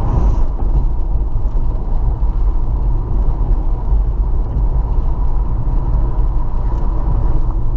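Steady road and engine noise heard from inside a moving car: a continuous low rumble with no change in pace.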